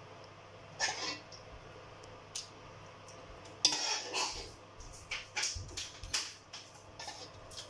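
Metal spoon clinking and scraping against a glass baking dish while spreading meat sauce over pasta: a few separate knocks, then a quicker run of clinks in the second half.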